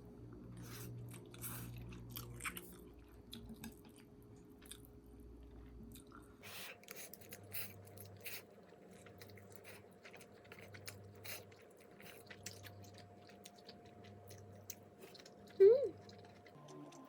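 A person chewing food close to the microphone, with many small crisp crunching clicks. A brief, loud squeak that rises and falls in pitch comes near the end.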